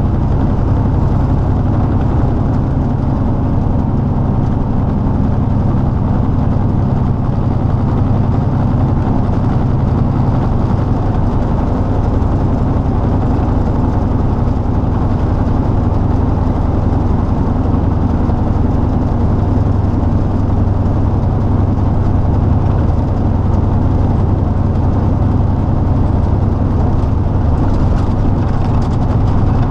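Heavy truck's diesel engine and road noise heard inside the cab while cruising at steady speed: a loud, even low drone.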